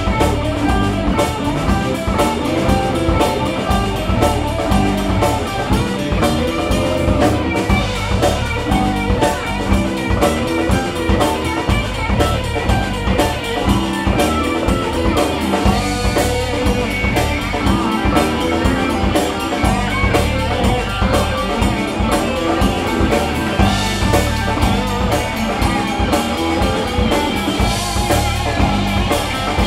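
Live alt-country rock band playing an instrumental section: guitars over bass guitar and drum kit, with no singing.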